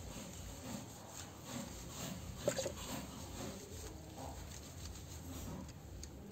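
Hands rubbing a wet Lhasa Apso's fur around its head and face: soft, repeated rubbing strokes about twice a second, with one brief sharper sound about two and a half seconds in.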